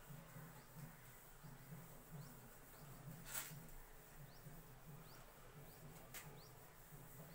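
Near silence: a whiteboard being wiped with a duster, faint rubbing with a few sharp knocks, the clearest about halfway through. Faint short high chirps repeat in the background.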